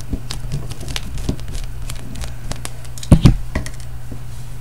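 Handling noise from opening a Soviet DP-5A Geiger counter's case: light clicks and scrapes of a hand and screwdriver on the housing, with a couple of heavier knocks about three seconds in. A steady low hum runs underneath.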